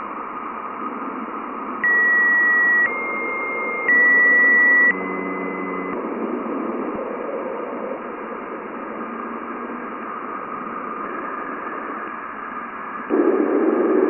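Juno spacecraft radio and plasma-wave data from Jupiter turned into sound: a steady static hiss, the sign of Jupiter's magnetic field meeting the solar wind. About two seconds in, a run of four short steady beep-like tones steps up and down, each about a second long. The hiss swells louder near the end.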